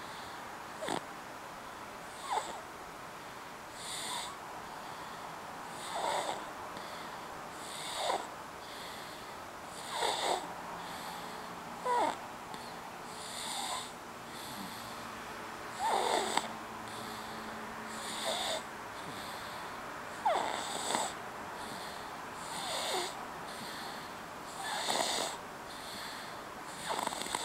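A sleeping baby snoring, with one snore about every two seconds in a steady rhythm.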